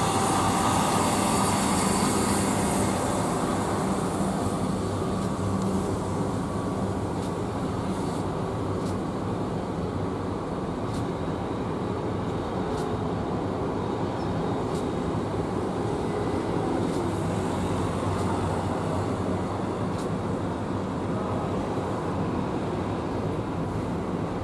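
Boeing 767 jet engines as the airliner rolls out along the runway after touchdown: a loud rush with a hissing top for the first few seconds that eases into a steadier low rumble as it slows.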